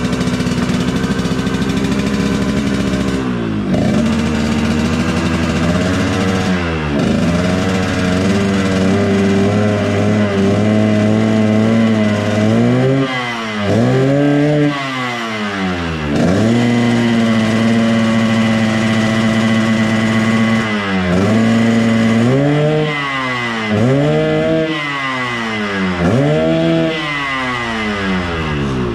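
Yamaha RX-King's two-stroke single-cylinder engine idling while the throttle is blipped again and again, the engine note rising and falling with each rev, as the bike is being tuned.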